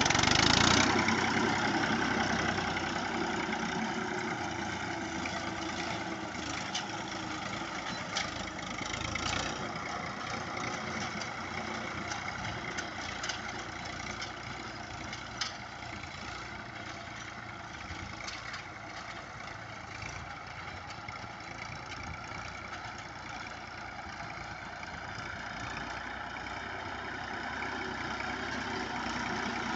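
Farm tractor engine running steadily, loudest in the first second or so, with a few sharp clicks on top.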